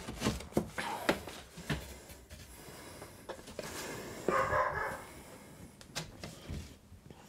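A cut-out piece of drywall being pulled free of the wall and handled, with scattered light knocks and scrapes. A brief pitched call, like a dog's, comes about four seconds in.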